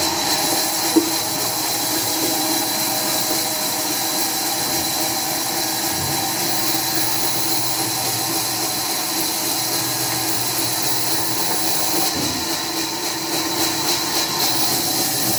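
Sawmill machinery running steadily, a loud even hiss with a constant hum under it, and one sharp click about a second in.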